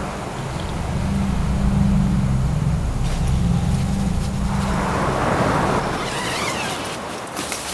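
A low, steady rumble that fades out about five seconds in, then a tent's door zipper being drawn open near the end, with a few clicks.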